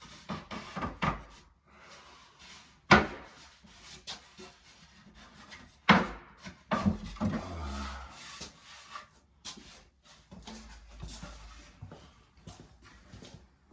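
Wooden shelf pieces being handled and fitted: rubbing and scraping with small knocks, and two sharp knocks about three seconds apart.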